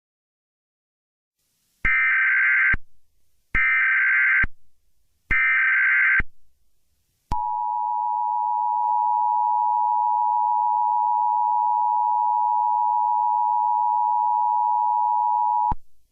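Emergency Alert System header: three short, identical bursts of SAME digital data screech, each just under a second long. About seven seconds in, the EAS two-tone attention signal begins and holds steady for about eight and a half seconds, then stops abruptly. This is the standard signal that announces an emergency alert message.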